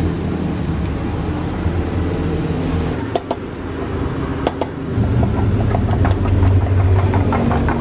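Wooden spatula beating eggs and filling in a stainless steel mug, with a few sharp clinks against the metal and quicker light taps near the end. Under it runs a steady, loud, low engine-like hum.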